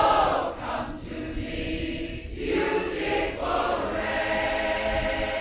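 Large mixed choir of men and women singing together in phrases with short breaks, the last phrase ending on a long held chord in the second half.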